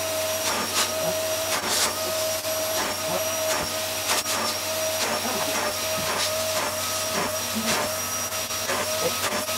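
Wertheim 7 Series canister vacuum cleaner running steadily with its upholstery nozzle on a fabric sofa: a steady motor hum under a high whistle and rushing air, with occasional short scuffs as the nozzle is pushed over the cushions.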